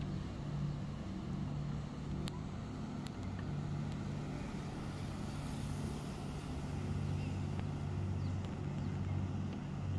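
Boat engine running with a steady low drone, and a couple of faint clicks about two and three seconds in.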